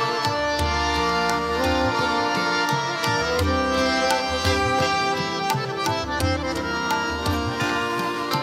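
Instrumental interlude of a ghazal: a harmonium plays held, reedy melody notes over steady tabla strokes, with no singing.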